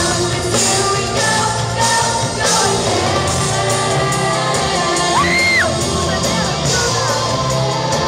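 Live pop-rock band playing with female vocals, heard from within a concert hall audience. A high shout rises and falls from the crowd about five seconds in.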